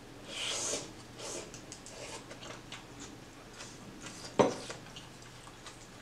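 A short slurp of noodles just after the start, then chewing with small wet clicks. About four and a half seconds in, one sharp clack as the chopsticks knock against the stainless-steel pot.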